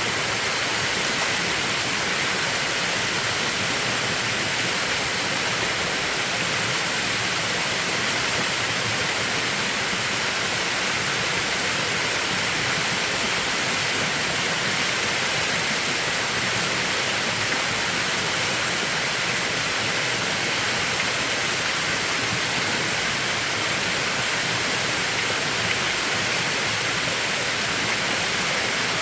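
Mountain stream water rushing steadily, an even, unbroken sound of flowing water.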